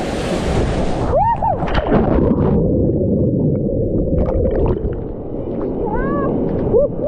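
Waterfall water rushing steadily. About a second in, its bright hiss drops away and leaves a muffled rush. Over it come a few short squeals that rise and fall in pitch: two about a second in, and more near the end.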